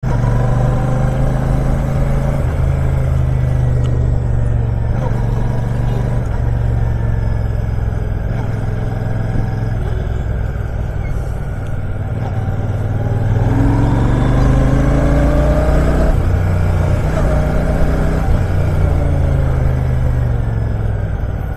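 Royal Enfield Shotgun 650's parallel-twin engine running under way, its note rising about two-thirds of the way through and easing off again near the end.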